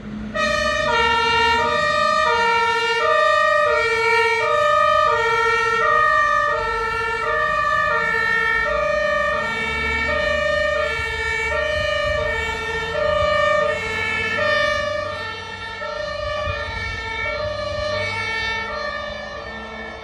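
German two-tone fire engine siren (Martinshorn) sounding, switching between a low and a high tone about every two-thirds of a second, with a vehicle engine rumbling underneath. It grows somewhat quieter near the end as the vehicle drives away.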